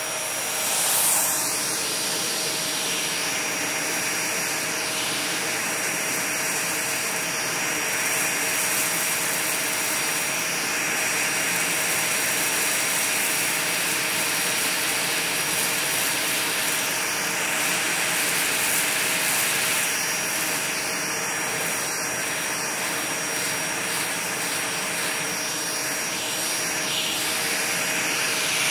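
Vacuum cleaner with a brush nozzle running steadily: a continuous rush of air with a steady high-pitched motor whine.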